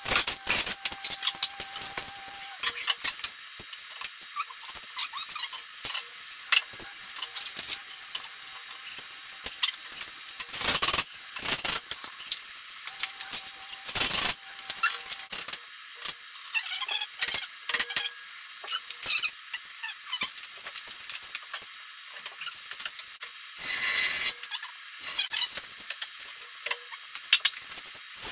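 Work noise from fitting a solid oak stair tread: scattered clicks, knocks and scraping of tools and wood being handled, with a few short, louder noisy bursts about eleven, fourteen and twenty-four seconds in. A faint steady whine sounds twice for a couple of seconds.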